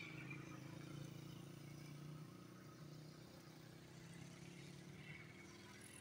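Faint, steady low engine hum.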